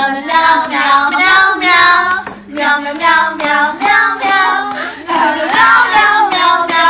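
A high-pitched voice singing a wavering melody over a steady low hum.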